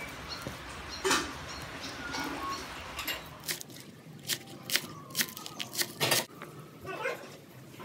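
Scattered sharp clicks and taps of kitchen work, one about a second in and a quick run of them in the second half.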